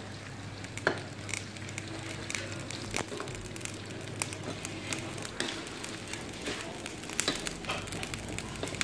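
Crickets frying in hot oil in a wok over a charcoal stove: a steady crackle with scattered sharp pops and clicks.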